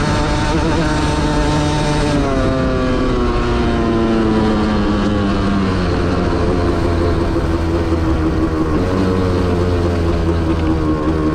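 Dirt bike engine running as it is ridden. Its note drops about two seconds in, keeps falling slowly for a few seconds, then holds lower and steady.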